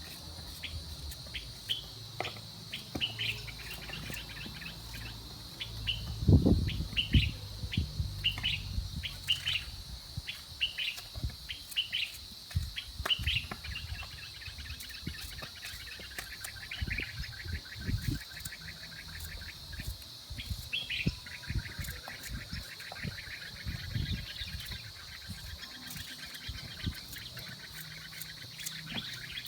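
Small birds chirping and trilling over a steady high insect drone, with scattered low thumps and knocks, the loudest about six and seven seconds in.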